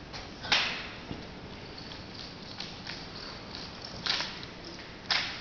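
Drill rifles being handled in a rifle drill routine, hands slapping and catching the rifles: three loud sharp cracks, about half a second in, just after four seconds and near the end, with a few softer clicks between.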